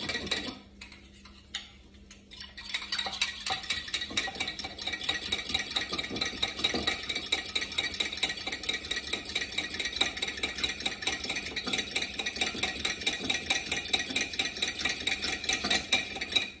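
Spoon stirring quickly in a small cup, clicking against its sides in a fast, even rhythm that starts a couple of seconds in, as sauce powder is mixed into boiling water so it does not go lumpy.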